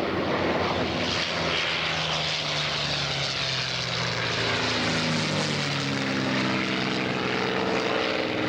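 Piston-engined propeller warplanes flying past, a steady engine drone whose pitch drops as one passes about midway, with another coming in near the end.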